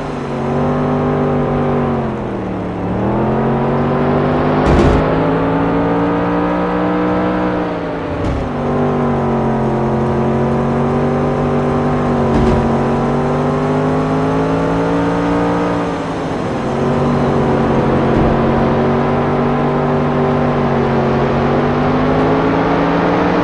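A race car's engine running hard, its pitch easing off and climbing back again several times as if lifting for corners and accelerating out of them, with a few sharp knocks along the way.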